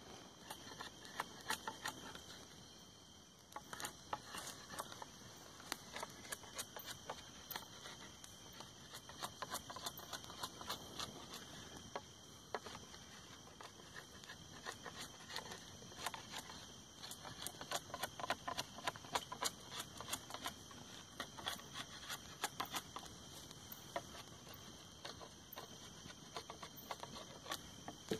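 Knife shaving bark off a green wooden pole, making irregular scraping strokes and sharp clicks. A steady high insect trill runs underneath.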